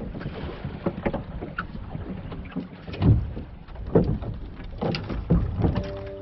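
Wind on the microphone and water washing along the hull of a small wooden sailboat under sail, with several hollow knocks from the boat, the loudest about three and four seconds in. Music starts near the end.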